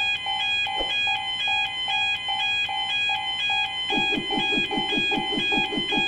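Railway crossing warning bell of the Japanese fumikiri kind, ringing its repeating alternating two-tone ding at about two and a half strikes a second. About four seconds in, a quick run of lower short blips joins it.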